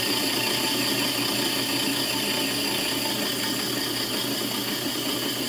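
Drill press running with a cup grinding stone held against a flywheel's glazed clutch face, grinding it flat: a steady motor hum under an even grinding hiss.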